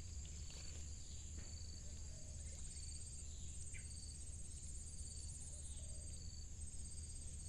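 Insects, crickets among them, trilling steadily and high-pitched, with a second insect chirping in short pulses about once a second.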